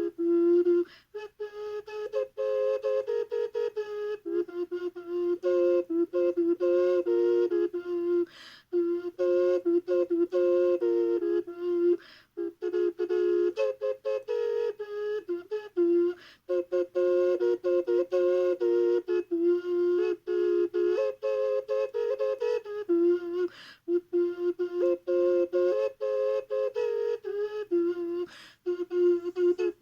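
3D-printed Huaca multi-chamber ocarina in F4 minor pentatonic being played: a held low F drone with a melody of separately tongued notes moving above it, broken by a few short pauses.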